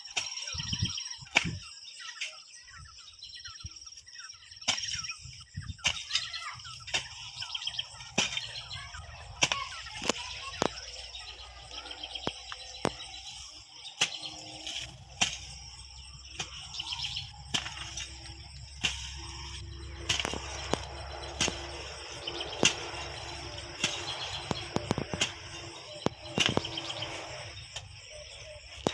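Irregular knocks and rustling of dry sticks and plant debris being cleared and gathered by hand for mulch, with birds chirping throughout.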